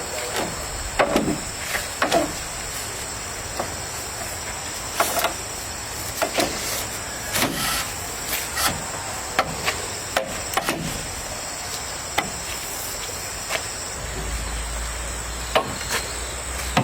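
Insects droning steadily at a high pitch, with irregular knocks and taps about once a second.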